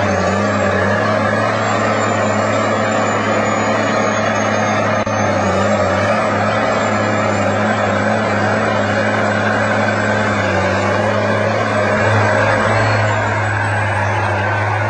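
IronWolf Slasher land-clearing attachment and the heavy machine carrying it running steadily at work, with a constant low hum and a thin high whine that wavers slightly in pitch.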